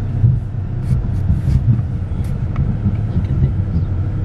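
Car moving slowly, heard from inside the cabin: a steady low rumble of engine and tyres.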